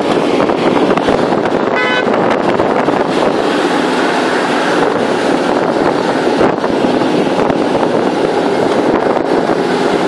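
Steady rush of wind and road noise from a vehicle travelling at speed on an expressway. A short horn toot sounds about two seconds in.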